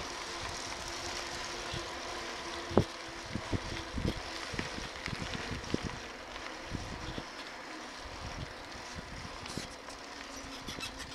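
Riding a bicycle on a paved trail: a steady rush of tyre and wind noise, with scattered knocks and rattles from bumps, the sharpest about three seconds in.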